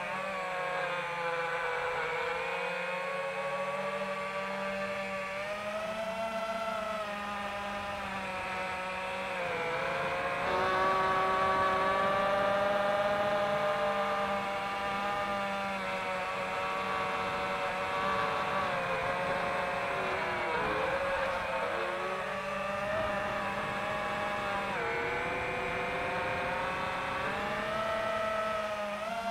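FPV quadcopter's brushless motors and propellers whining, the pitch rising and falling together with throttle changes, louder from about ten seconds in for a few seconds.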